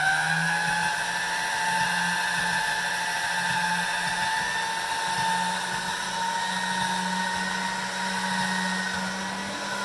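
Electric motor attachment on a pasta machine turning the steel rollers as a sheet of egg-noodle dough feeds through. It comes up to speed in the first half second, then runs with a steady whine.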